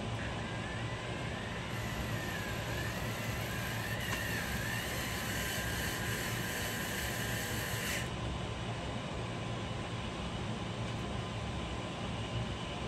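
DEWALT 8V MAX cordless screwdriver driving screws into an RC crawler beadlock wheel: its motor whine wavers in pitch, then holds steady for a few seconds and stops about eight seconds in. A steady air-conditioner hum runs underneath.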